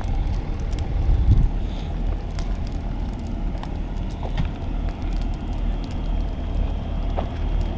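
Brush and log burn pile crackling, with scattered pops over a steady low rumble.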